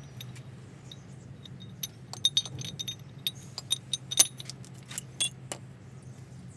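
Small metal parts and tools clinking and tapping together in irregular light clicks with a short metallic ring, over a steady low hum.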